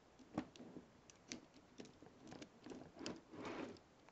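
Faint clicks and light rattles of plastic K'NEX rods and connectors being handled and shifted on the model, with a denser scraping rustle a little after three seconds in.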